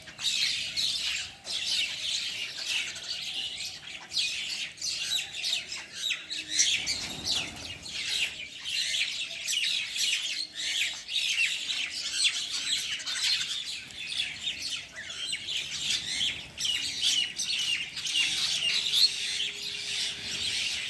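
Pet bird chirping and chattering without pause, a dense stream of short, high chirps and squeaks.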